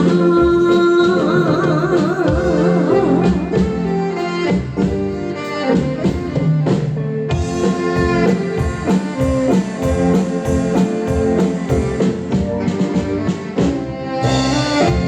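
Instrumental passage of a Taiwanese enka-style song: a band backing track with guitar and drum kit playing a steady beat, with a wavering melody line near the start.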